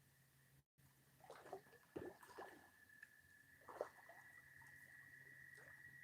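Near silence: a faint steady whine and low hum, with a few soft knocks and rustles in the first half.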